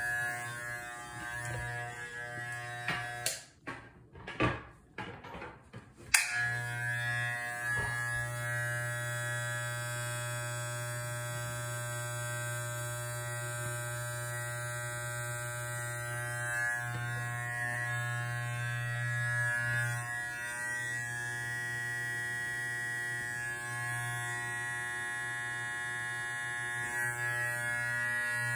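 Electric T-blade hair trimmer buzzing as it edges a beard and hairline. Its steady hum breaks off with a few knocks about three seconds in, then starts again about six seconds in and runs steadily.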